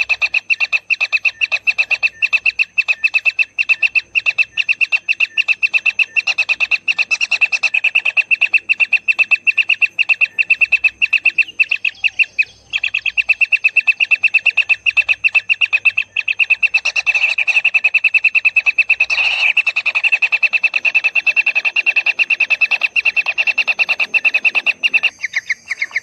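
Kingfisher nestlings calling nonstop from the nest burrow: a fast, steady train of short, harsh notes, typical nestling begging. The calling breaks off briefly about halfway through, then carries on.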